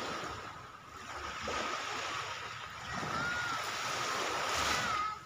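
Small waves washing up the shore in a steady hiss of surf.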